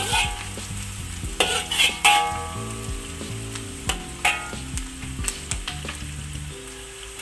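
Shallots, garlic and lemongrass frying in hot oil in a steel wok, sizzling, while a metal wok ladle stirs them, knocking and scraping against the wok with a short metallic ring several times.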